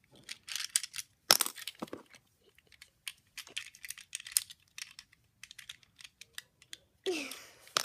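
Small plastic toy pieces clicking and tapping as they are handled and fitted into a plastic toy ice cream truck, with a sharper click about a second in.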